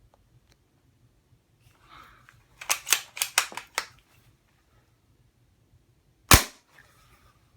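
A quick run of metallic clicks as the bolt of a CZ455 .22 rimfire rifle is worked, then, about six seconds in, a single suppressed shot of subsonic .22 ammunition through its integral suppressed barrel: one short, sharp crack with a brief room echo, metered at about 116.7 dB, no louder than a finger snap.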